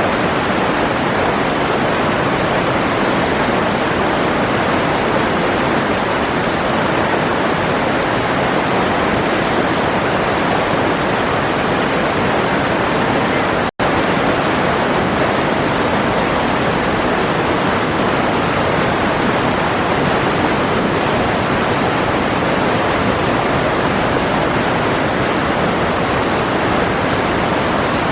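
Steady rushing noise of running water, even and unbroken except for a split-second dropout about fourteen seconds in.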